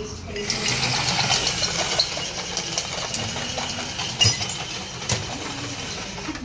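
A steady mechanical running noise with a few sharp knocks, the loudest a little past four seconds in.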